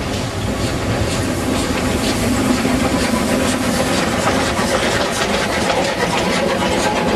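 Narrow-gauge steam train passing close by: a PNKA Class B25 0-4-2 rack tank locomotive going by, then its coaches, with a steady run of wheel clicks and clatter over the track.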